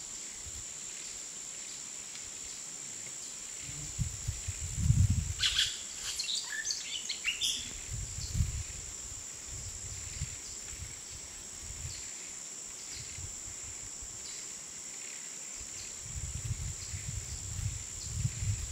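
Steady high-pitched drone of forest insects, with a quick run of bird chirps about six seconds in. Low rumbles from a car driving slowly over a rough road come and go underneath.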